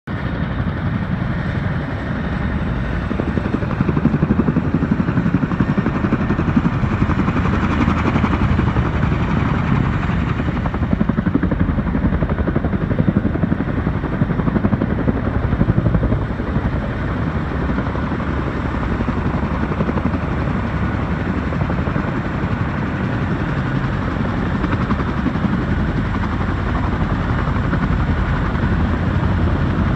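Boeing CH-47 Chinook tandem-rotor helicopter flying in low and hovering: the fast, heavy chop of its two rotors over the whine of its turbines, loud and steady, swelling a few seconds in as it comes closer.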